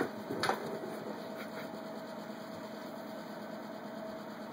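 Two sharp knocks about half a second apart as a cat bats the plastic ball in a Turbo Scratcher's track, then a steady low hum.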